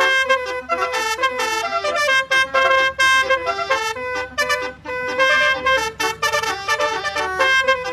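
Basuri telolet horn, a multi-tone vehicle horn, playing a melody as a quick run of short notes stepping up and down in pitch.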